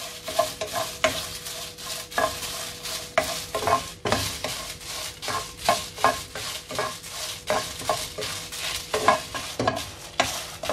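A spatula stirring and scraping dried red chillies around a nonstick kadai as they roast, in quick, irregular strokes of about three a second.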